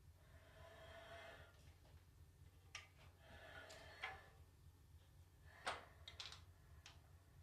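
Faint clicks and scraping of hand tools and metal parts being handled while fasteners on a transmission's extension housing are undone. Several short sharp clinks, the loudest near the end, over a steady low electrical hum.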